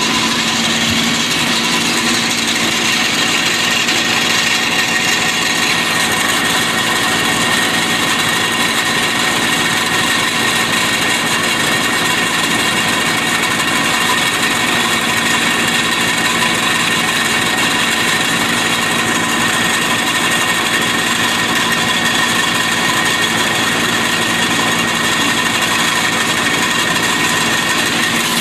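Tractor engine running at a steady speed, with a constant high whine over the engine note.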